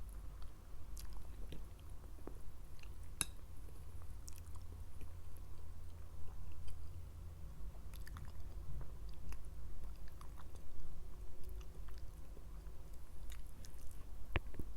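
Close-miked chewing and biting of food, with many short wet mouth clicks and an occasional crunch.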